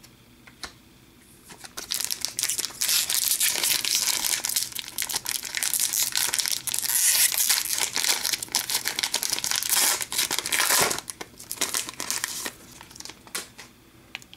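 A plastic trading-card pack wrapper being crinkled and torn open by hand. Dense crackling starts about two seconds in and thins to scattered crinkles near the end.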